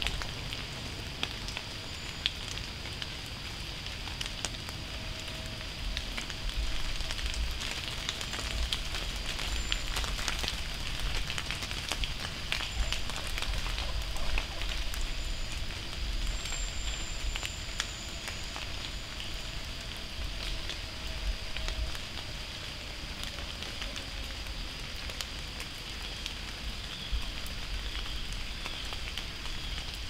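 Acorns dropping from oak trees onto the leaf-covered forest floor: many scattered small ticks and taps that sound like rain.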